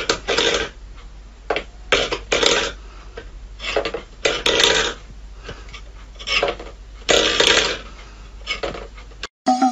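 Stainless steel bowl pawed by a cat, scraping and rattling on a wooden floor in several short bursts a second or two apart.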